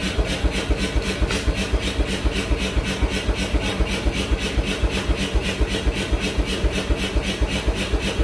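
A machine running steadily with an even, rhythmic beat of about five pulses a second, each a deep thud with a sharper crack on top.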